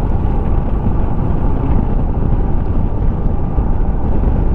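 Steady wind rush buffeting a GoPro microphone on a moving Royal Enfield Himalayan motorcycle, with the bike's running noise mixed into it.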